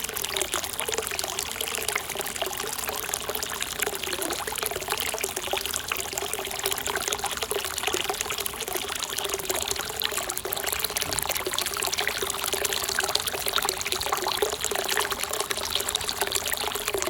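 Hot-spring water pouring steadily from a bath spout into the pool below, a continuous splashing trickle.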